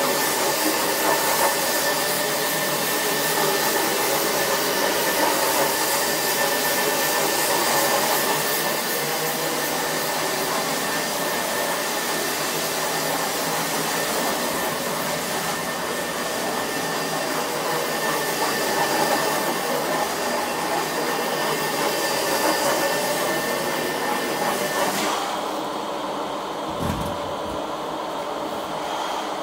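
Carpet extraction machine running with a Rotovac rotary wand: a steady vacuum rush with a constant whine. About 25 seconds in the high hiss drops away, and a brief low thud follows soon after.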